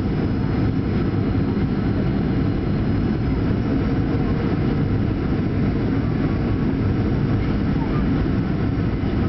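Steady cabin noise of a Boeing 737-800 on its landing approach, heard from a window seat beside its CFM56-7B engine: an even low rumble of engine and airflow with no changes.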